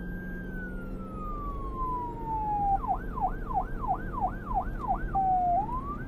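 Police-style electronic siren: a long wail that holds high and then glides down in pitch, then switches to a fast yelp of about three rising-and-falling sweeps a second. After a short low pause it rises again and goes back into the yelp near the end.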